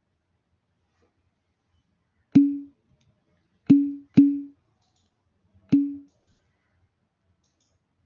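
Four sharp knocks, each with a short low ring, spaced unevenly: two about a second and a half apart, then a quick pair, then one more.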